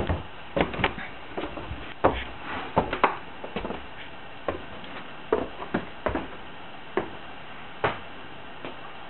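Irregular knocks and clunks in a small room, one or two a second, some coming in quick pairs.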